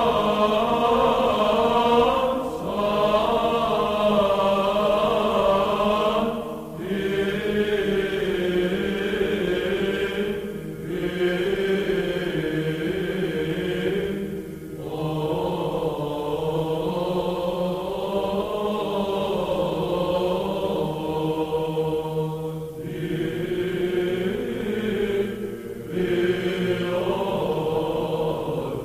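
Chanted vocal music, sung in long phrases broken by short pauses every few seconds, over a steady low held drone note.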